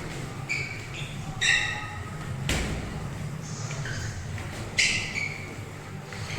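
Several short, high squeaks, typical of boxers' shoes twisting on a gym floor during sparring, with one sharp thud about two and a half seconds in, over a steady low hum.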